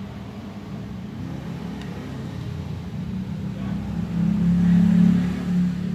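A low engine rumble that grows louder about four seconds in, peaks, and eases off near the end, like a motor vehicle going by.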